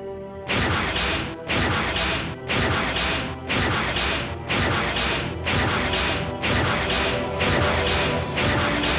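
Background music with a heavy, crashing percussion hit about once a second over held notes.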